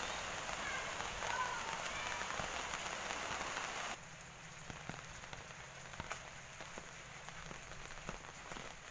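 Steady rain falling on paving and plants. About four seconds in it cuts suddenly to quieter rain with scattered single drips.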